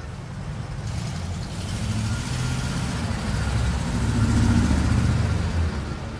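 A low engine-like rumble that builds up to its loudest about four to five seconds in and then dies away.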